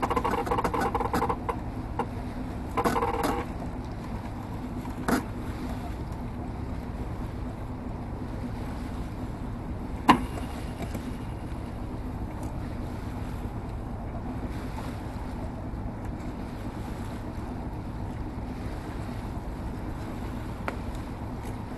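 Wind and water noise aboard a sailing yacht under way, with wind buffeting the microphone and a faint steady hum. Two short pitched tones sound in the first few seconds, and a single sharp knock comes about ten seconds in.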